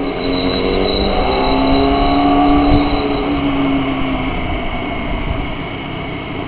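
A motorcycle's jammed rear brake squealing steadily as it drags while riding, over road and engine noise. The high squeal fades out a little past halfway.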